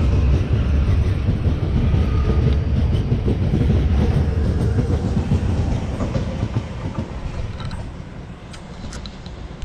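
Auckland AM class electric multiple unit passing close by, its wheels rumbling on the rails. The rumble fades away over the last few seconds as the end of the train goes past.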